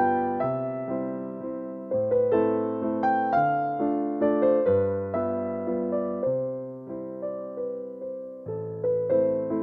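Background piano music: a gentle tune of struck notes and chords, each left to fade.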